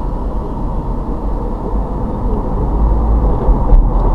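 Car driving at low speed, with steady engine and road rumble heard from inside the cabin, growing louder over the last couple of seconds as the car speeds up.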